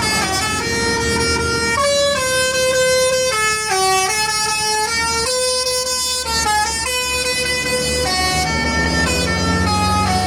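Bus's Basuri telolet horn playing a melody of held notes that step up and down in pitch, over the rumble of the bus engine, which grows louder near the end.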